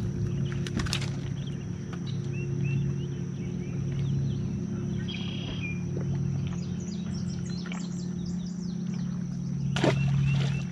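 Small birds chirping over a steady low hum, with a sharp knock about a second in and another near the end.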